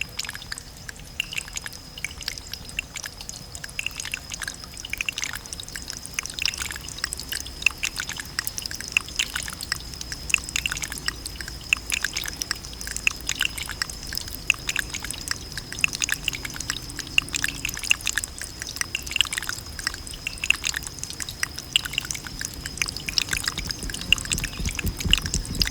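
Water dripping in many small, irregular drops, getting denser and louder after the first few seconds, with a steady thin high tone underneath.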